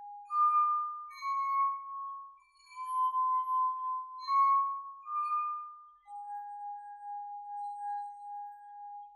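Singing wine glasses tuned with water, each sounded by a fingertip rubbed around its rim. Its stick-and-slide friction sets the glass ringing, and the glasses play a slow tune of clear, steady notes about a second each. The tune ends on a longer, lower note held for about three seconds.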